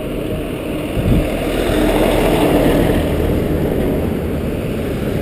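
Highway traffic passing close by on a bridge: a semi-trailer truck and cars going past with engine and tyre noise. There is a sharp low thump about a second in, then the noise swells and eases off slowly.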